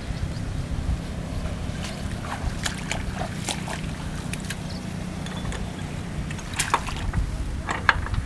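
Single-cylinder Kubota diesel engine of a walk-behind hand tractor running steadily at low speed, with a few sharp clicks and knocks near the end.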